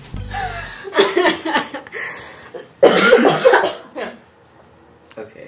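Bursts of coughing and laughing from people, the loudest about three seconds in.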